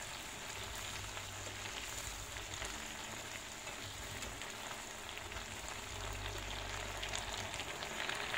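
Leunca and tauco stir-fry sizzling steadily in a frying pan as its sauce simmers and the water cooks down.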